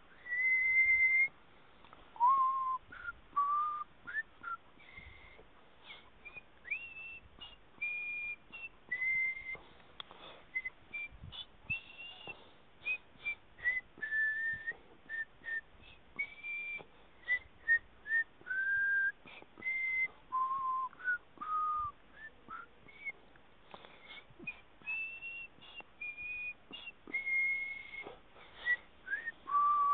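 A person whistling a slow tune: clear single notes, some held for about a second, joined by short upward slides, in phrases with brief pauses between them.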